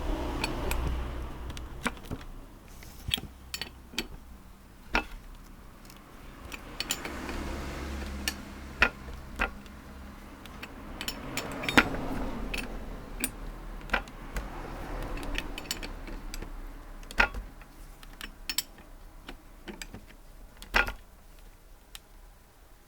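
Steel hand tools and hardware clinking and knocking during a bolt-and-nut bearing press on a motorcycle link: scattered sharp metallic clicks, a few much louder, over a low steady hum.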